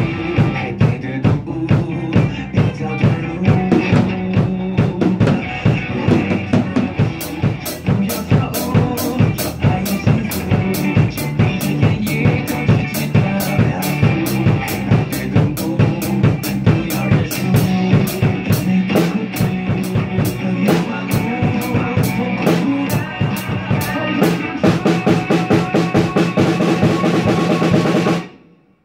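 Acoustic drum kit played along with a recorded pop song: bass drum and snare hits over the track's steady bass and chords, joined about a quarter of the way in by a fast, even stream of cymbal strokes. Everything stops suddenly just before the end.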